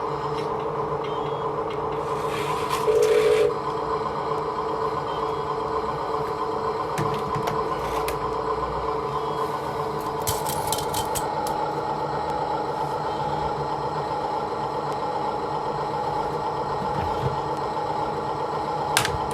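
Hydraulic RC construction machine running, its pump giving a steady whine, with scraping and clattering from the work. A louder rush of noise comes about three seconds in.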